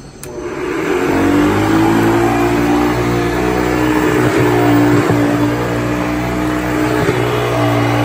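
Hoover Convertible U4317 upright vacuum cleaner switched on with a click. Its motor spins up over about a second and then runs at a steady pitch while the vacuum is pushed over carpet.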